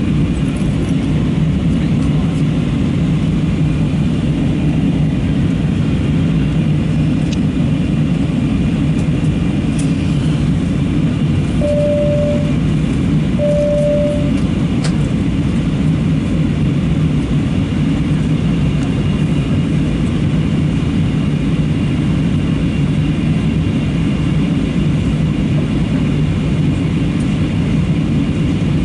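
Steady cabin noise inside an Airbus A320-232 airliner in flight: a loud, even, low rush of jet engines and airflow. About twelve seconds in, two short electronic tones of the same pitch sound, just under two seconds apart.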